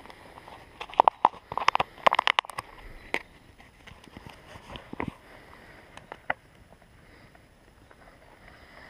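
A quick run of sharp clicks and knocks, handling noises, mostly in the first three seconds with a few more scattered later, then a faint steady outdoor background.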